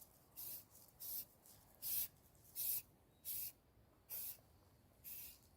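Aerosol spray-paint can sprayed in short squirts: about seven brief hisses in a steady rhythm, each lasting a fraction of a second.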